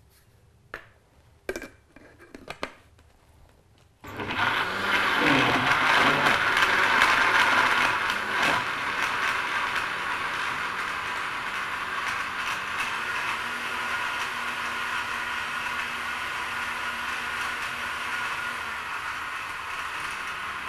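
A few light clicks and knocks, then an electric blender switches on about four seconds in and runs steadily, blending fruit, oats, almond milk and chia seeds into a smoothie. It is loudest for its first few seconds, then settles a little lower as the mix smooths out.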